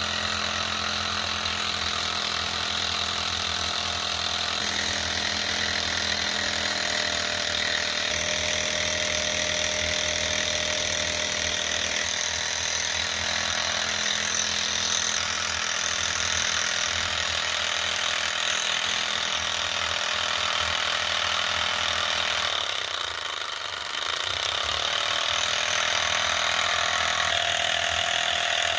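Enjomor Ross-yoke Stirling engine with glass cylinders and graphite pistons, running steadily on its gas burner, with a continuous mechanical rattle from its linkage and bearings. The sound dips briefly about two-thirds of the way through.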